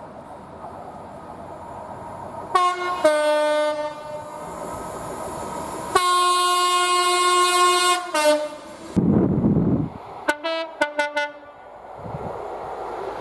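Train air horn sounding a series of blasts over the noise of the approaching train: two short blasts about two and a half seconds in, a long blast of about two seconds in the middle, then a quick run of short toots near the end. A brief low rumble falls between the long blast and the toots.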